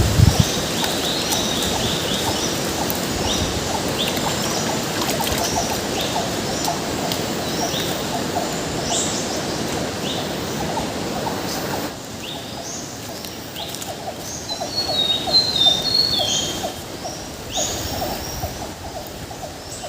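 Tropical forest birds calling over and over in short chirps, with a louder trilling call about three-quarters of the way through, over a steady hiss that drops off a little past halfway. A low thump sounds right at the start.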